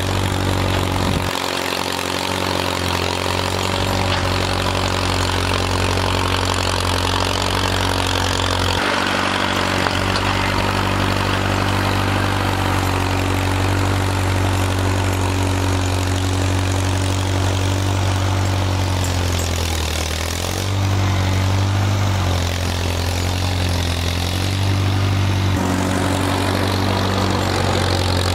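Farmall M tractor's four-cylinder engine running steadily, its note shifting several times and dipping briefly about twenty seconds in as it works.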